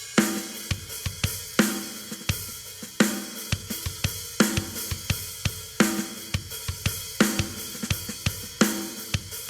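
Programmed rock drum beat played back from EZDrummer 2 virtual drum software: kick, snare and cymbals in a steady, even rhythm with a strong accent about every second and a half.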